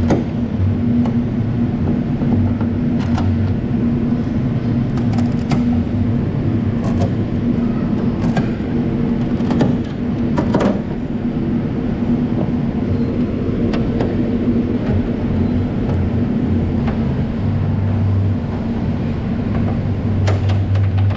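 Steady machine hum, as of workshop equipment running, with scattered sharp clicks and knocks, most of them in the first half.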